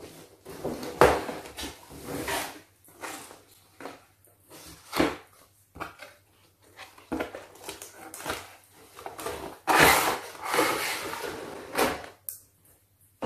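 A cardboard toy box being handled and opened: flaps pulled open and the inner tray slid out, with cardboard scraping and rustling and small knocks on the tabletop in irregular bursts. The longest, loudest stretch of scraping comes about ten seconds in.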